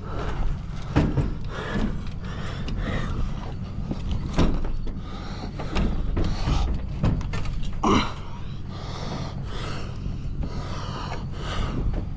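Irregular knocks, clanks and scrapes of a heavy metal washing machine being handled, over a steady low rumble.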